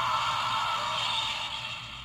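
Electronic sound effect playing from the DX kaiju toy's small built-in speaker, one of its preset voice and sound clips. It trails off near the end.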